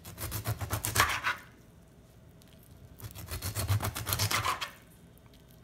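Kitchen knife sawing down through raw shad fillet onto a plastic cutting board: two runs of quick back-and-forth strokes, with a pause between.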